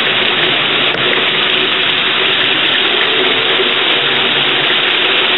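Heavy rain pouring down in a steady, loud rush, with a faint steady tone running underneath.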